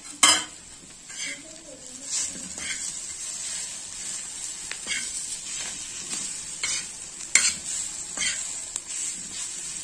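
Flat metal spatula scraping and tapping on an iron tava as it mashes and stirs spiced potato, in irregular strokes about once a second, with a sharp clank just at the start. A faint steady sizzle runs underneath from the hot oil on the griddle.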